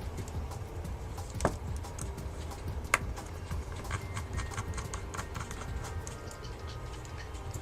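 Scattered light clicks and taps of a small screwdriver and tiny phone screws being handled at a work surface, the two sharpest about one and a half and three seconds in, over a low steady hum.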